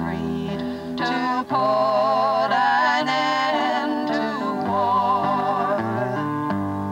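A song: a melody sung with vibrato over held instrumental chords that change every second or so.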